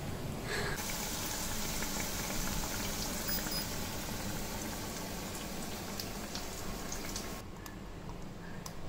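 Bajji, gram-flour batter fritters, deep-frying in hot oil in a pan: a steady crackling sizzle. It stops suddenly near the end, leaving a few light clicks.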